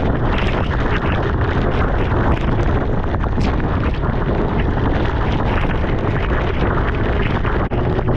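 Steady, heavy wind noise on the camera microphone of a sport bike at speed, with the motorcycle's running and road noise underneath.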